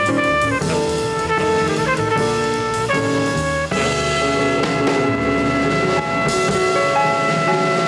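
A jazz record playing on a turntable: horns over drum kit. The horns run through moving phrases, then settle into a long held chord about four seconds in, while the drums keep playing under it.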